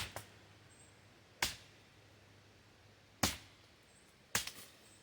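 A sword blade chopping into wood with four sharp strikes spread over a few seconds. The last strike is followed by a quick second hit.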